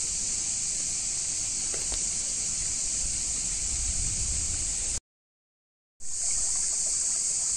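Shallow forest stream running over stones: a steady high-pitched hiss, broken by a second of dead silence about five seconds in.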